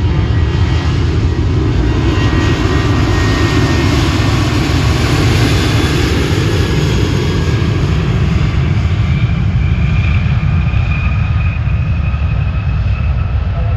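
Jet airliner's engines passing close, a loud, steady rush with a deep low end. A high engine whine comes in over the second half.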